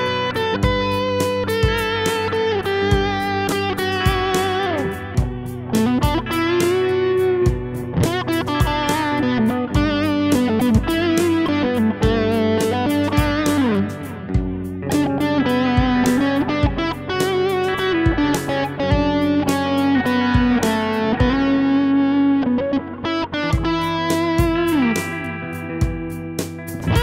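Instrumental background music: an electric guitar melody with pitch bends over sustained chords and a steady beat.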